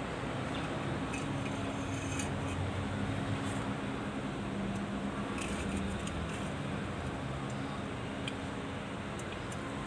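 Steady background hum and noise, with faint light clicks and taps of steel propeller-shaft tubes being slid together and handled.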